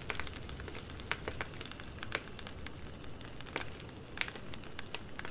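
Cricket chirping steadily at about three chirps a second, with scattered faint clicks.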